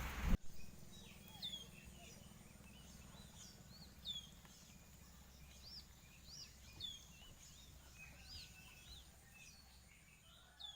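Heavy rain noise cuts off abruptly in the first half second. Then many short, high-pitched bird chirps repeat throughout over a faint low steady hum.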